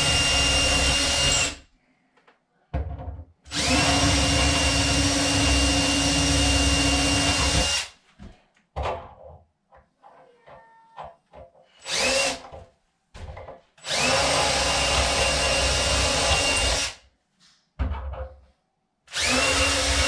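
Cordless drill boring holes through a cabinet's back panel in separate runs of a few seconds each, with one short burst in the middle. At the start of each run the motor whine climbs in pitch and then holds steady. Small knocks fall between the runs.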